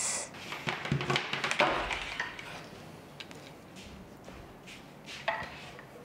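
A wooden stool being handled and lifted down off a tabletop: rubbing and light wooden knocks for the first couple of seconds, then a few faint clicks.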